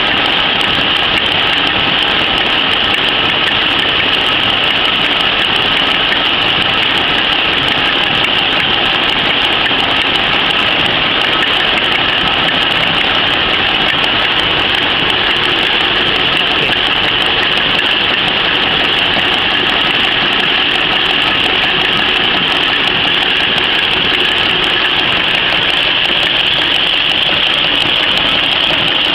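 PCMC napkin-folding machine running steadily at production speed: a loud, even machine din with a bright hiss on top, unchanging throughout.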